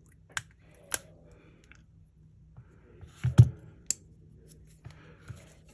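Sharp clicks and taps of small repair tools handling parts of an opened smartphone: two clicks in the first second, a louder cluster of knocks about three and a half seconds in, then a few lighter ticks.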